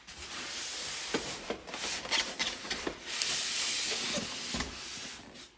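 Plastic and foam packaging rustling and crinkling as an RC dump truck is unpacked from its box, with a few small clicks and knocks among the rustle.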